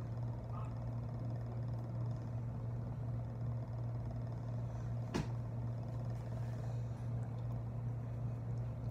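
Steady low hum, with one sharp click about five seconds in.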